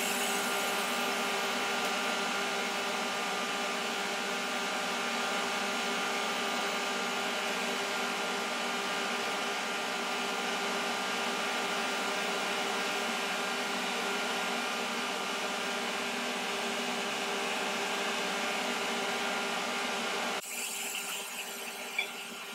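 Steady whirr of a kitchen extractor fan over the sizzle of beef cubes searing in a pan. The whirr holds at one pitch and cuts off abruptly near the end.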